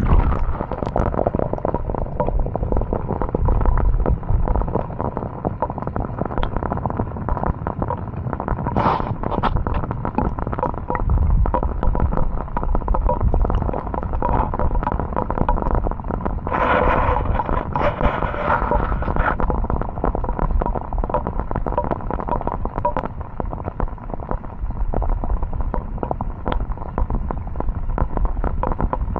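Rain hitting a small action camera right at its microphone: a dense, irregular crackle of drops over a low rumble.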